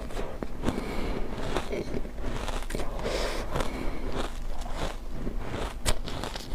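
Close-up crunching and crackling of refrozen ice chunks being bitten and chewed, a dense irregular run of crisp cracks.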